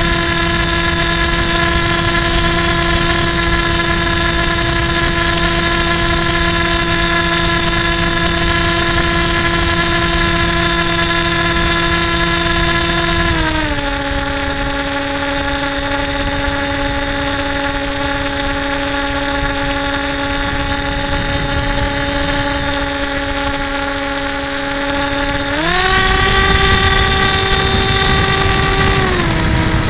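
The HobbyKing Breeze 2 model plane's electric motor and propeller whining steadily under power, heard from the onboard camera with wind rush underneath. The pitch drops about halfway through as the throttle is eased back, climbs again a few seconds before the end, then falls once more.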